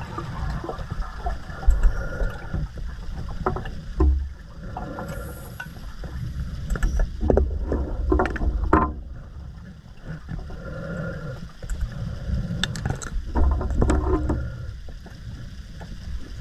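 Scuba diver breathing through a regulator underwater: a repeating cycle of a hissing inhale and a rumble of exhaled bubbles, about every four to five seconds.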